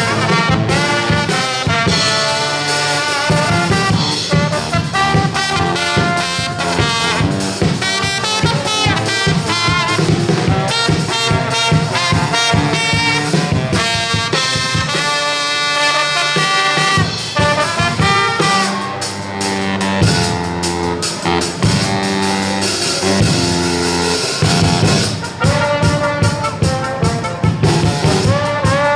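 Brass band playing a lively tune, trumpets and trombones in quick runs of notes over drums, loud and without a break.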